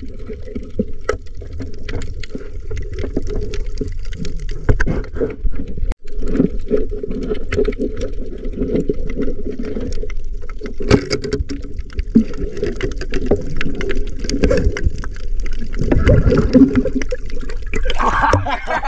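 Muffled underwater rumble and gurgling of water, with scattered clicks. Near the end it turns to the splashing of water as the camera breaks the surface.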